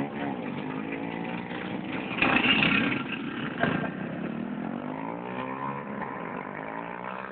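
Several motorcycle engines revving and passing, their notes rising and falling, loudest about two seconds in.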